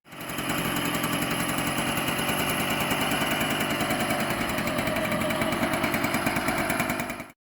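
Jawa 50's 50 cc single-cylinder two-stroke engine running steadily with a fast, even beat. It starts and stops abruptly.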